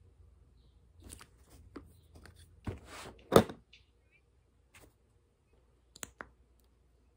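Small plastic lip tint tubes and their applicator caps being handled over a packaging box: scattered taps and light rustling, one sharp knock about halfway through, and two quick clicks near the end.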